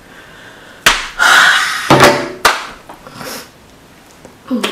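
A woman laughing out loud in breathy bursts without words, with two sharp thumps, one about a second in and another about halfway through.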